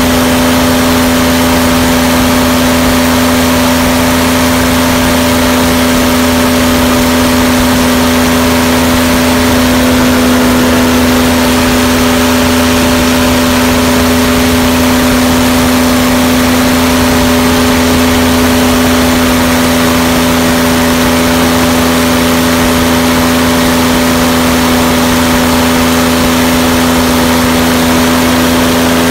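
V6 aircraft engine running at full power and driving a propeller during a static run-up. It is a loud, steady drone whose pitch and loudness hold unchanged.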